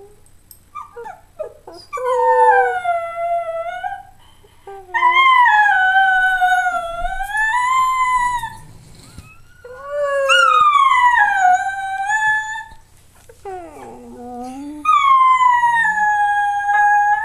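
Schnauzer howling: four long howls, each sliding down in pitch and then holding, with a short lower call between the last two.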